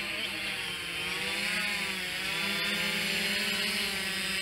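Quadcopter drone's motors and propellers whining as it hovers low, the pitch sagging and rising again a couple of times as the FIMI X8 2020 trims its height.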